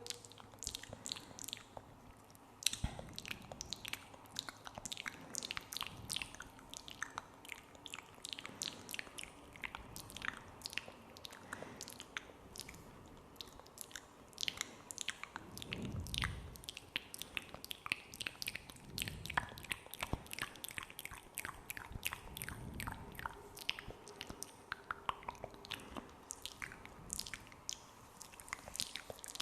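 Close-miked ASMR mouth sounds: wet, sticky clicks and smacks of tongue, lips and saliva, several a second, as in spit-painting ASMR. A couple of soft low thuds come about halfway through.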